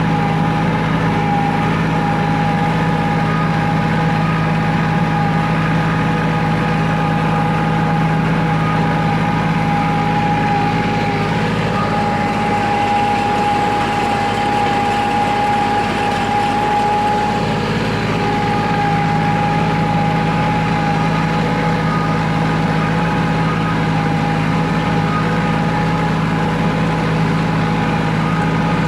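Kubota compact tractor's diesel engine running steadily under load while driving a rotary tiller, with a steady whine above the engine note.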